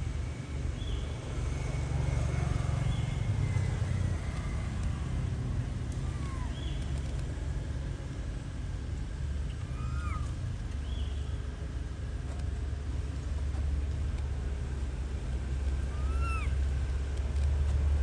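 Outdoor ambience: a steady low rumble with short, high, arched chirping calls scattered through, about half a dozen of them.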